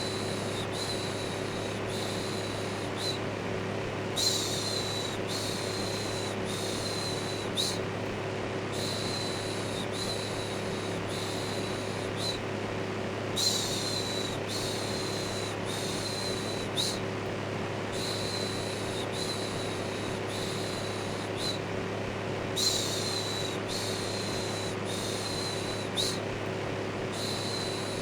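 Electric fan running with a steady low hum, overlaid with looped human shushing ("shhh") that repeats about once a second, with a louder shush roughly every four to five seconds.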